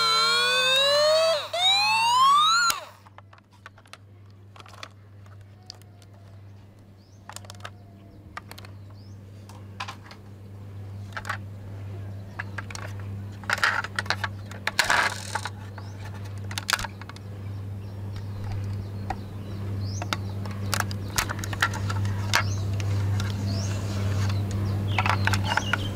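Toy fire truck's electronic siren, rising and falling through its small speaker, cutting off suddenly about two and a half seconds in. After it, scattered clicks and knocks as toy vehicles are handled, over a low steady hum.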